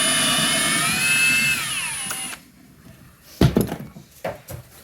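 Power drill running with a steady motor whine. It speeds up slightly, then winds down and stops a little over two seconds in. About a second later comes a sharp knock, then a few light clicks of handling.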